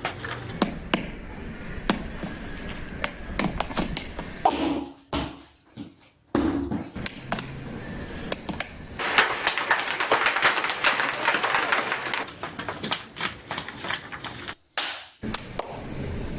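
Children making body percussion: feet stamping on a hard floor and hands clapping, a string of sharp taps and thumps. There is a short break about five seconds in, and a dense run of rapid taps in the middle.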